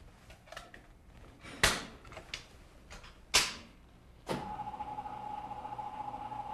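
Hospital bed side rail being raised: a few clacks and knocks, two loud ones about a second and a half apart as the rail latches into place. A steady hum with a held tone starts about two-thirds of the way in.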